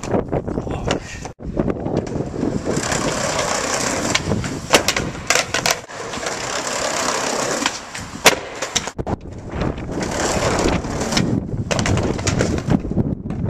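Skateboard wheels rolling on concrete paving, broken by several sharp clacks of the board's tail and deck striking the ground during flip-trick attempts.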